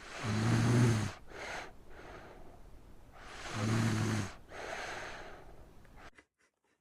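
A sleeping child snoring: two rattling snores on the in-breath about three seconds apart, each followed by a breathy out-breath. The sound cuts off abruptly about six seconds in.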